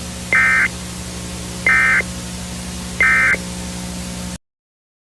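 Emergency Alert System end-of-message data bursts: three short, buzzy electronic screeches about 1.3 seconds apart, marking the end of the alert. Under them run a steady hum and static, which cut off suddenly near the end.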